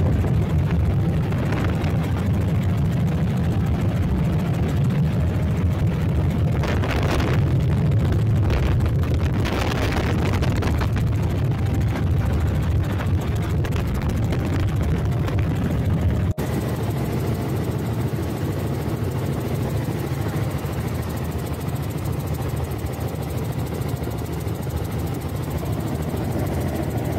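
Helicopter engine and rotor noise heard inside the cabin in flight: a loud, steady, mostly low-pitched rumble. It dips for an instant about halfway through and carries on slightly quieter.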